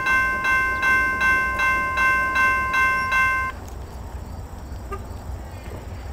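Railroad grade-crossing bell ringing at about three dings a second, warning of an approaching train. About three and a half seconds in it cuts off abruptly, leaving faint outdoor background noise.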